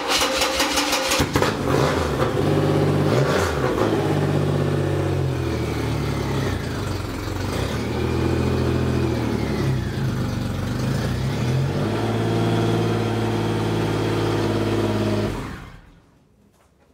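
Triumph Rocket III's 2.3-litre inline three-cylinder engine. It cranks on the starter, catches, and idles with several blips of the throttle that rise and fall in pitch, then it is switched off and cuts out suddenly near the end.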